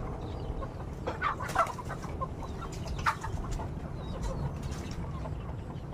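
Chickens clucking in short, scattered calls, loudest about a second and a half in, over a steady low rumble.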